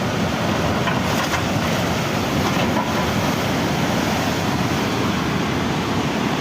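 Steady loud rushing noise with no distinct events.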